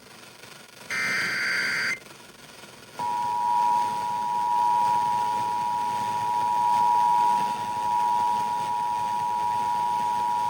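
Emergency Alert System tones heard over FM radio: a one-second burst of SAME digital header data, then after a second's pause the steady two-tone EAS attention signal (853 and 960 Hz). The tones signal that a civil emergency message is about to be broadcast.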